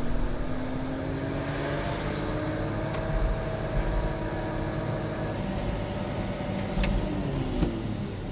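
Diesel engine of a concrete mixer truck running under light throttle as the truck moves slowly, its pitch rising gently at first and easing off near the end, with a few light clicks.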